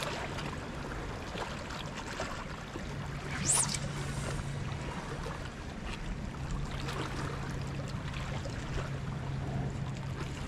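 Waves and water washing steadily on a rocky shore, with a brief swish about three and a half seconds in as a beachcasting rod is swung through a cast.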